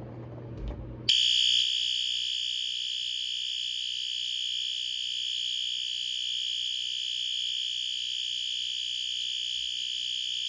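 System Sensor P2R fire alarm horn strobe switching on sharply about a second in and sounding a loud, steady, buzzy horn tone without a break. It measured about 116 dB.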